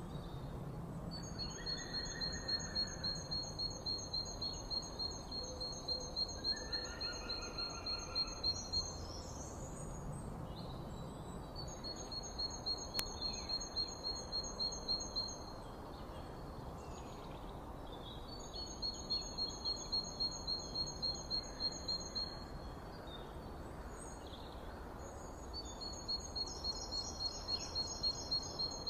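Forest ambience: a high, rhythmic pulsing call repeats in bouts of several seconds, about two to three pulses a second, with gaps of a few seconds between bouts. A few softer whistled bird notes sound under it.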